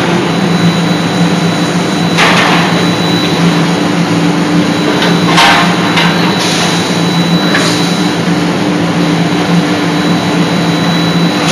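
C92K-80KJ CNC closed-die forging hammer striking a hot workpiece: several heavy blows at uneven intervals, the first about two seconds in and two close together near the middle, over a steady low machine hum.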